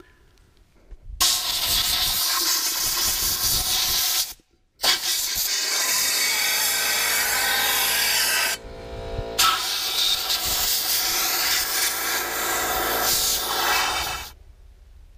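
Compressed-air blow gun blasting through an LS oil pump pickup tube in three long, loud hissing bursts that start and stop sharply, with a brief dip between the second and third. The air is drying acetone and water out of the tube.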